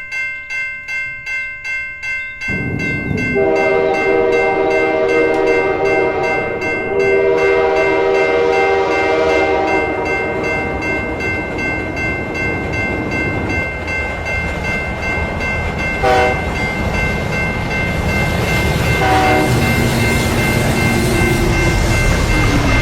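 A railroad crossing bell rings about three times a second. A train then comes through, rumbling, with its horn sounding one long chord and short blasts again later.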